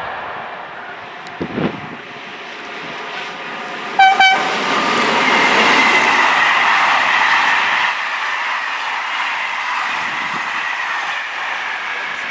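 SNCF Corail passenger train rolling past, with a steady rolling noise and a faint high whine from the coaches. A brief horn blast sounds about four seconds in.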